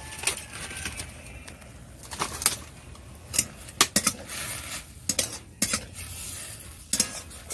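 A spatula knocking and scraping against a metal kadai as chopped greens are stirred, in irregular strokes, over the low sizzling hiss of the greens steaming in a little boiling water.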